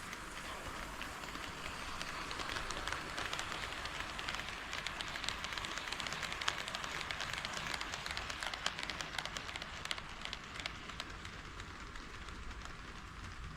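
HO-scale model train running on KATO Unitrack: a steady whirring rattle of wheels on the rails, with quick fine clicks over the rail joints. It grows louder over the first few seconds and fades near the end as the train passes.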